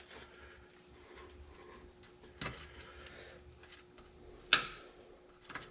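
A couple of short clicks and clacks as a wheel speed sensor cord is worked loose from its clips on the front suspension, the louder one near the end, over a faint steady hum.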